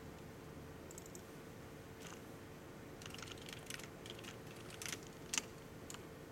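Computer keyboard typing: a run of key clicks that comes thickest in the second half, with one louder keystroke near the end, over a faint steady hum.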